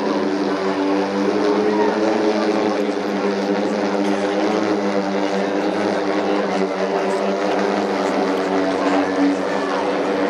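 Pivotal eVTOL aircraft's electric-driven propellers humming in flight overhead: a steady chord of several tones that shift slightly in pitch as it manoeuvres.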